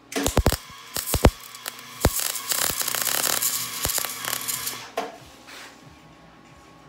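Electric arc welding crackling: a few short strikes in the first second or so, then a steady crackling run of about three seconds that stops abruptly about five seconds in.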